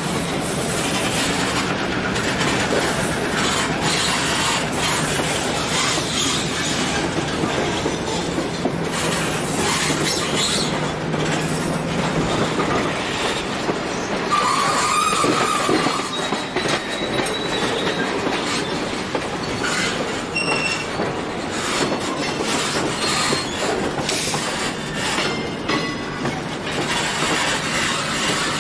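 Passenger cars of a diesel-hauled train rolling along, wheels clicking over the rail joints, with thin metallic wheel squeal on the curves through the middle.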